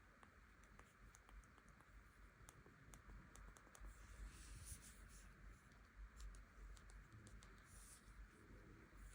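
Faint, quick light taps and clicks, most of them in the first half, with a few soft rustles: hands tapping and handling a smartphone.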